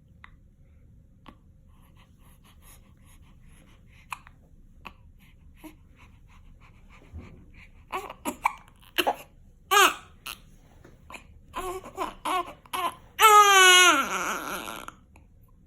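Newborn baby hiccuping: short squeaky hics, roughly one every half second to a second, starting about halfway through, then a two-second fussy cry falling in pitch near the end.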